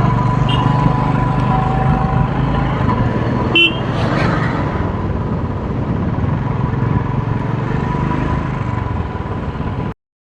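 Motorcycle engine running steadily on the move, with a brief horn toot about three and a half seconds in. The sound cuts off abruptly near the end.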